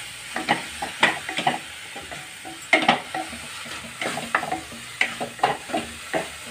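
A spatula scraping and stirring fried onions and freshly added ginger-garlic paste in a hard-anodised kadai, in quick irregular strokes over a light sizzle of frying.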